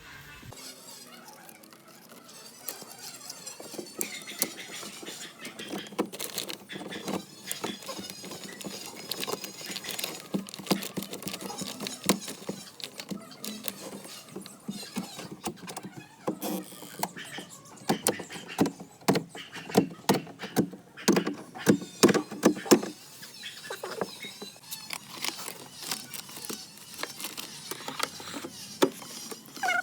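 Hand repair work on a washing machine's water outlet: tools and parts clicking, knocking and scraping, with a burst of rapid knocks about two-thirds of the way through.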